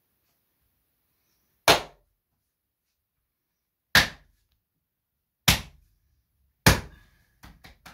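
Four sharp thuds of a manual therapist's hand blows on a patient's lower back, spaced one to two seconds apart, then a quick run of lighter taps near the end. This is percussive spinal correction, striking to set displaced vertebrae back in place.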